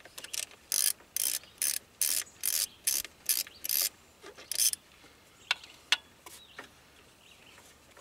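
Hand socket ratchet clicking in short bursts, about two a second, as it backs out the 6 mm hex retaining bolts of the ignition coils, followed by a few lone clicks.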